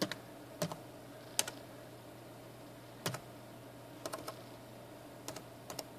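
Computer keyboard being typed on slowly: about ten separate keystrokes at uneven spacing, with a quick run of three about four seconds in.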